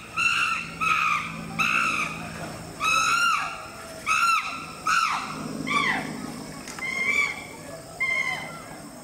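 Chimpanzee screaming: a series of loud, high-pitched screams, about one every two-thirds of a second, several sliding down in pitch around the middle.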